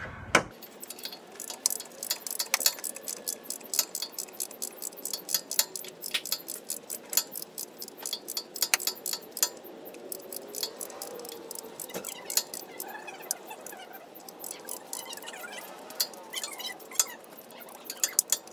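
Irregular metallic clicks and clinks of a wrench working a torque converter bolt out of a 42RE automatic transmission's converter. The clicks come thickly at first and thin out later.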